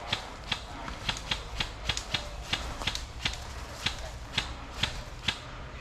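Airsoft gun firing single shots in quick succession, about fifteen sharp clicks at roughly three a second, unevenly spaced.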